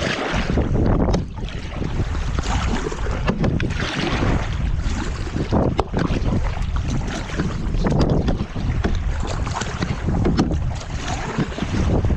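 Wind buffeting the microphone in a loud, uneven low rumble over the splashing of kayak paddles in the water, swelling every second or two.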